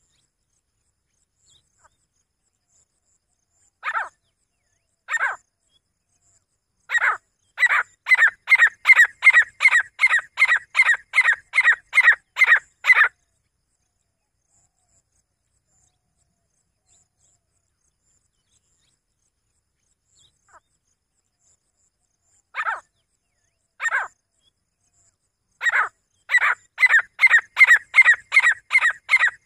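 Grey francolin calling: two separate notes, then a quick run of loud, evenly spaced notes, a little over two a second, lasting about six seconds. After a pause of about ten seconds, the same two lead-in notes and a new run begin.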